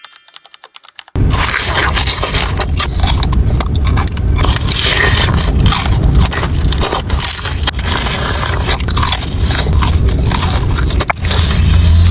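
Close-miked biting and chewing of Popeyes fried chicken, the crisp breading crunching and crackling in a dense run of sharp clicks. It starts abruptly about a second in.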